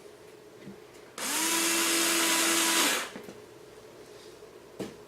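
A small electric power tool runs for about two seconds, its motor whine rising quickly as it starts and then holding steady before it stops. A sharp click follows near the end.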